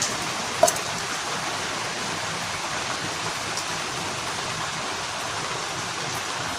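Steady background hiss, even and unchanging. There is a faint click at the start and a brief tap a little over half a second in.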